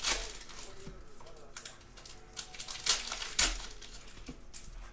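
Foil wrapper of a basketball card pack crinkling as it is handled, in several sharp rustles, the loudest about three and a half seconds in.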